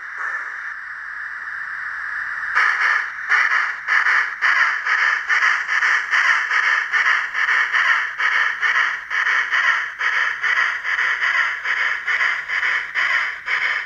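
Steam-locomotive sound from an N-scale Union Pacific Big Boy model's DCC sound decoder through its small onboard speaker: a steady steam hiss, then exhaust chuffs that begin slowly about two and a half seconds in and settle to about two and a half a second as the locomotive runs.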